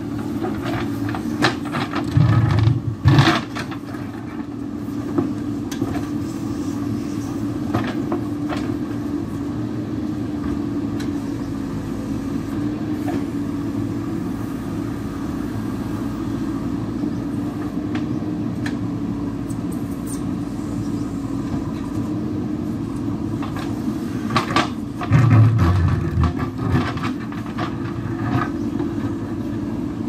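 JCB backhoe loader's diesel engine running steadily under load as its backhoe bucket digs into a rocky bank. Twice, a couple of seconds in and again near the end, the engine grows louder and the bucket knocks and crunches against rock.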